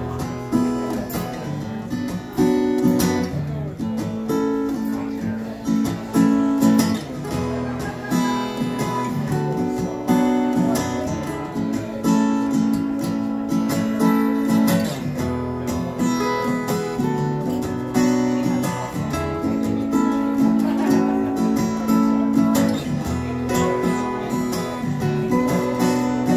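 Two acoustic guitars played live together, strumming chords in an instrumental passage with no singing.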